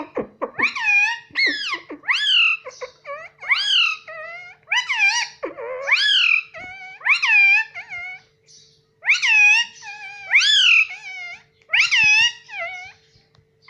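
Pet parrot giving a rapid series of loud, shrill calls, about a dozen. Each call rises and then falls in pitch, with a short pause about two-thirds of the way through.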